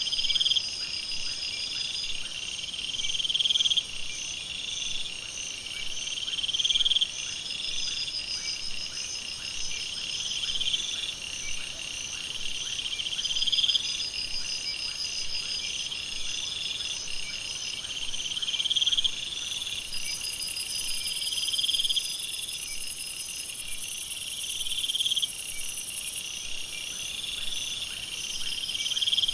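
Night jungle insect chorus, a dense layer of high chirps and trills. One call swells and cuts off again about every three seconds. A loud high-pitched buzzing joins about twenty seconds in and stops about six seconds later.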